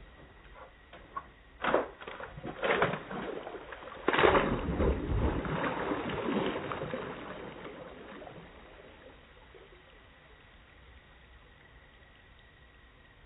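A couple of knocks, then a Yorkshire terrier splashing into a swimming pool about four seconds in, followed by a few seconds of splashing and sloshing water that fades as the dog swims off.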